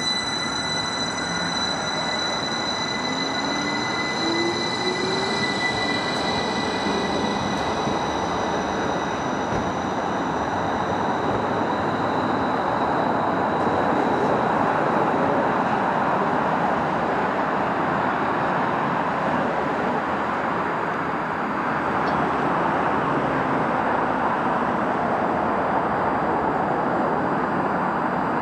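An electric multiple unit pulls away, its traction motors giving a high whine that fades over the first several seconds, with a rising tone as it picks up speed. A steady rumble of train noise then carries on and swells a little as another train approaches.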